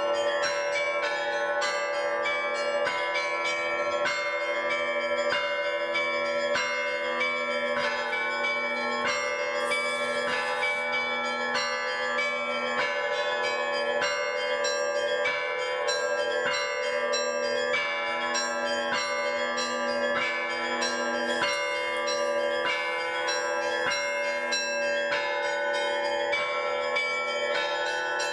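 Russian-style bell ringing (zvon): several bronze bells struck together in a continuous peal. Quick, repeated strokes on the smaller bells sound over steady, lingering tones of deeper bells.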